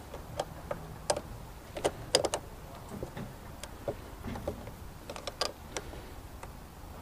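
Sharp, irregular metal clicks and clinks of a small wrench tightening the nut on a car battery's terminal clamp, reconnecting the battery.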